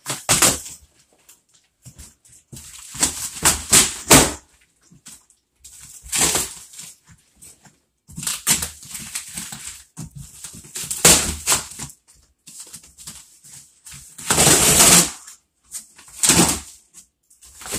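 A cardboard box being torn open by hand: short ripping and rustling bursts a second or two apart, with quiet gaps between them.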